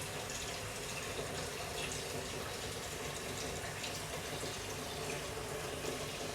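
Steady, even rushing background noise with no clear events.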